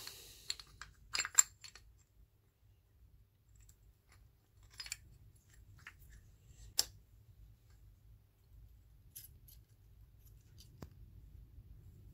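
Scattered light metallic clicks and taps as brake pads and a pad pin are fitted into a Honda VFR400 NC30 brake caliper, the sharpest a little over a second in and another near seven seconds.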